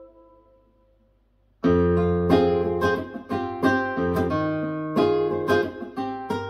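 Guitar music played through a floorstanding hi-fi speaker: the end of one track dies away, a brief near-silent gap follows, and about a second and a half in a new track starts with rhythmic strummed guitar.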